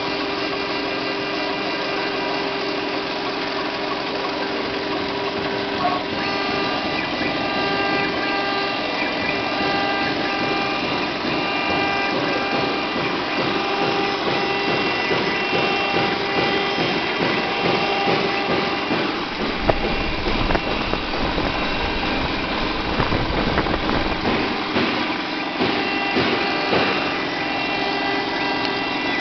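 Small CNC router engraving a copper-clad PCB: the spindle motor runs with a steady whine while the stepper motors add several tones that come and go as the engraving bit cuts the traces. A low rumble joins for several seconds past the middle.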